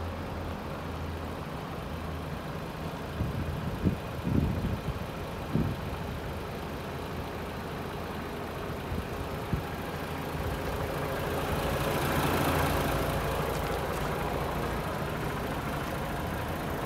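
DAF XF106 tractor unit's 12.9-litre PACCAR MX-13 straight-six diesel idling steadily, with a few dull thumps in the first third and a broad rush of noise swelling and fading about three-quarters of the way through.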